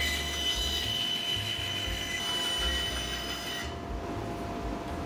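Bandsaw with a narrow blade running and cutting curves in a timber board, a steady machine hum with a hiss from the cut. The cutting hiss stops about three and a half seconds in while the saw keeps running.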